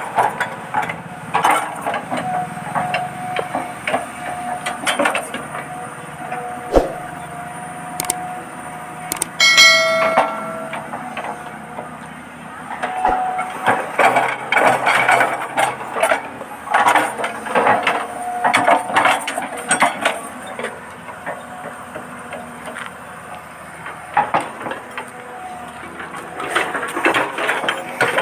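Huina 1593 RC excavator at work, its small electric motors whining on and off amid many clicks, knocks and scraping clatter from the gears and bucket, with a brief ringing clink about ten seconds in.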